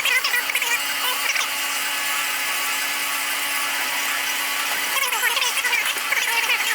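A power tool running, with busy whirring that is strongest in the first second or so and again near the end, over a steady hum.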